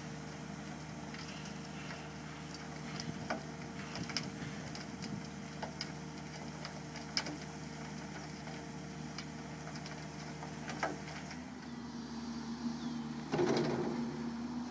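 Komatsu PC200 excavator's diesel engine running steadily while its hydraulic drum screener bucket turns and sifts soil, with scattered clicks and rattles throughout. The engine note shifts near the end as the machine swings, and a short loud rush of noise comes about 13 seconds in.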